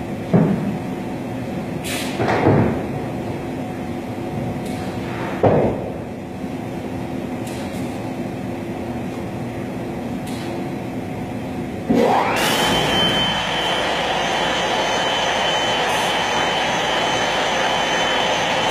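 CNC router running with a steady hum and a few knocks in the first six seconds. About twelve seconds in, its spindle spins up in a quick rising whine that levels off into a steady high whine, and the sound grows louder.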